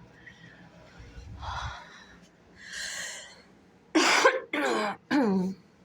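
A person coughing three times in quick succession, after a couple of soft breaths.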